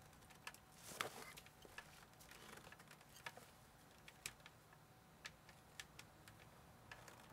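Near silence with scattered faint light clicks and taps, one sharper click about a second in.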